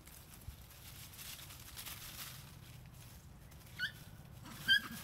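Baby macaque giving two short, high-pitched squeaks about a second apart near the end.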